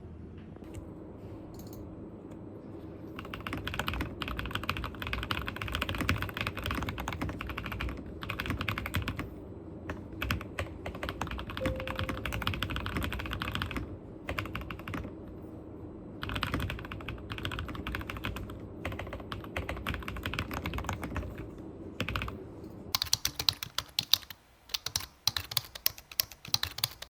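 ABKO AS104 mechanical keyboard being typed on: fast runs of key clicks with short pauses, turning into fewer, sharper separate keystrokes near the end.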